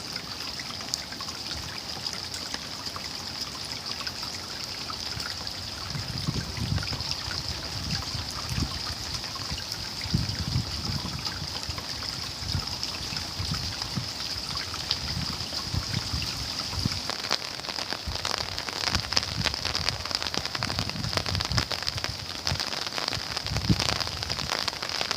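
Steady rain falling, a constant hiss full of fine drop ticks, with dull low thuds of heavier drops or drips now and then from about six seconds in.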